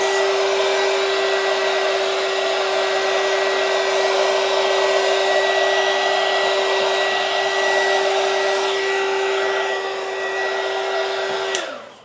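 Small heat gun running steadily, a loud rush of air with a steady whine, blowing over wet acrylic paint to pop surface bubbles. Near the end it is switched off and winds down, its whine falling.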